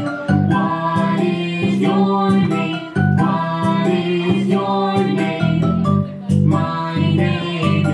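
Music playing: a song with singing over instruments and a regular beat.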